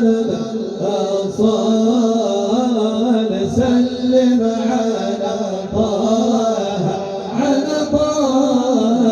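Devotional Arabic chanting of a madih nabawi (praise song for the Prophet): a voice holding long notes that bend slowly up and down.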